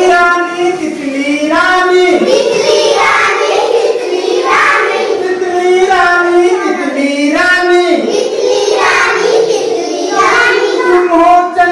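Young children singing a Hindi poem together in sung phrases of a second or two.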